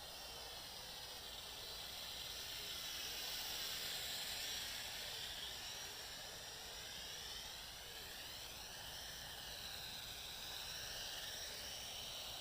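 Small quadcopter (JXD 509) motors and propellers whining in flight, the pitch sweeping up and down as the throttle changes, loudest around four seconds in.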